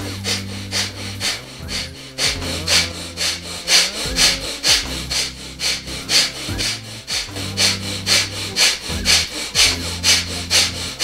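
Kapalabhati (breath of fire) breathing: quick, forceful exhalations driven by the diaphragm, about two sharp puffs a second in a steady rhythm, each followed by a passive inhalation.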